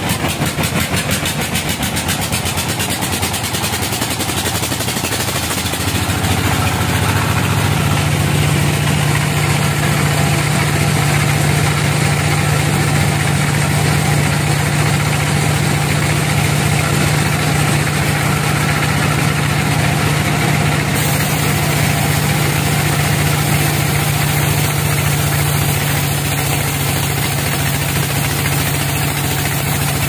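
Sawmill machinery running: a large vertical band saw and its log carriage, making a steady loud mechanical hum. A deeper drone sets in about six seconds in and holds.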